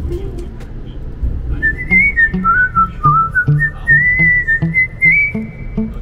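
Background music: a whistled tune over a steady bass beat. It comes in about a second and a half in after a brief lull.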